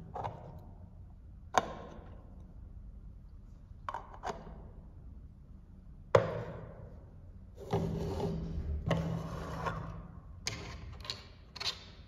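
Miniature plastic toy pots and lids being set down and pushed about on a ribbed tabletop: separate sharp plastic clacks, two longer scraping slides past the middle, and a quick run of clacks near the end.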